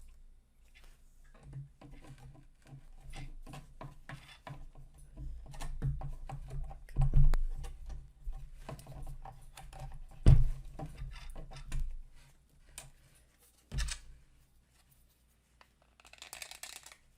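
Printed plastic case parts being handled and fitted together: a run of small clicks, taps and scrapes, with two sharper knocks about ten and fourteen seconds in, and a short rustle near the end.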